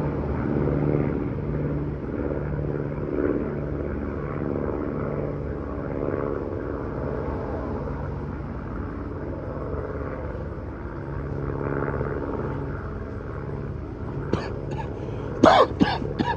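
Truck engine running nearby: a steady low rumble with a slowly pulsing hum. A few sudden loud sounds break in near the end.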